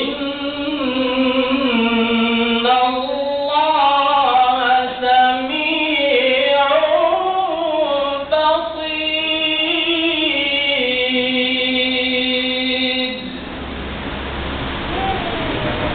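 A man's solo voice in melodic Quranic recitation through a microphone: one long, ornamented phrase with slow pitch glides, held until about 13 seconds in. It then breaks off for a breath pause, and a new phrase begins at the very end.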